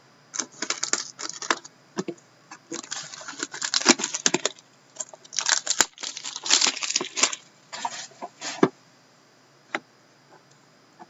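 A sealed hockey card box being opened by hand: the plastic wrap tears and crinkles and the cardboard is handled. It comes in several bursts of rustling and clicks with short pauses between them, ending with a single click.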